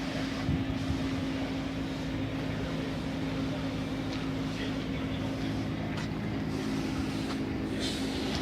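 Mayco C30 concrete pump's water-cooled Hyundai engine running at a steady speed, an even hum with a constant tone.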